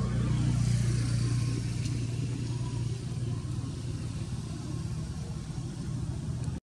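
A motor vehicle's engine runs steadily with a low hum. It is loudest about a second in, eases a little, and then cuts off abruptly near the end.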